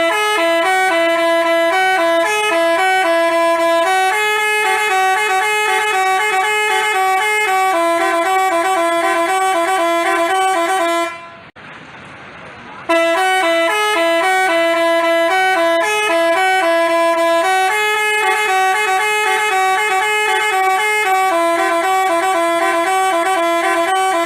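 Basuri telolet bus horn playing its multi-tone melody, a tune of stepping two-note chords lasting about eleven seconds. It stops briefly about halfway through, then plays the same tune again.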